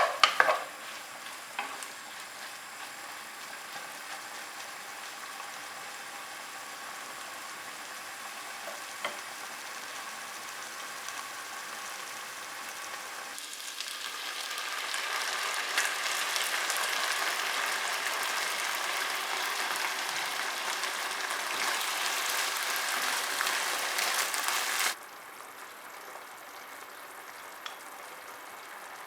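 Food sizzling in a frying pan as it is stirred, with a few sharp utensil clinks at the start. The sizzle swells louder about halfway through, then drops off suddenly near the end.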